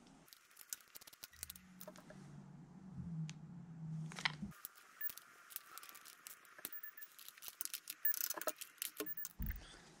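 Hand ratchet clicking in short runs as the bolts on a rear main seal housing are snugged down, with tools clinking against the metal.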